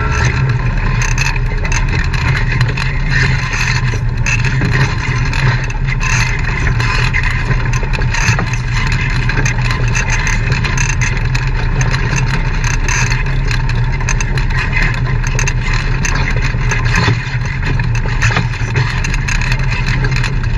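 An off-road vehicle's engine running steadily at low speed over a rough trail, with frequent short knocks and rattles from the bumps and rocks.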